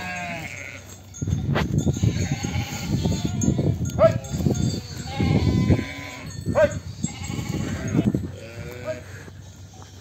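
A flock of sheep and lambs bleating, several separate calls overlapping, over a low rumbling noise that starts about a second in and fades near the end.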